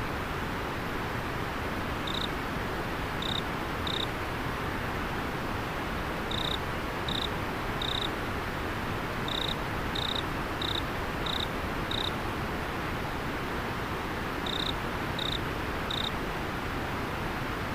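River water flowing steadily, with a single autumn insect giving short, high chirps at uneven intervals, about fourteen of them.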